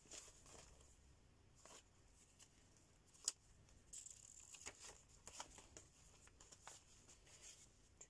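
Faint rustling and soft taps of paper pages being turned and handled in a handmade junk journal, with one sharper tap about three seconds in.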